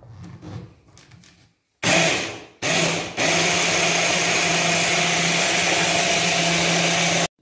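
Midea hand blender's motor running in its chopper bowl, blending a thick garlic and spice paste: light handling clicks as it is fitted, a short burst about two seconds in, then a steady run with a constant hum that cuts off suddenly near the end.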